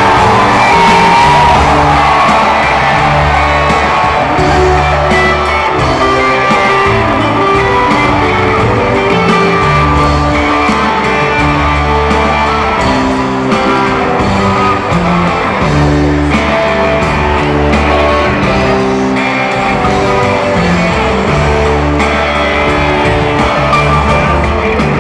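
A rock band playing live through an arena PA, with electric guitar over steady bass notes, recorded from the stands in a large reverberant hall.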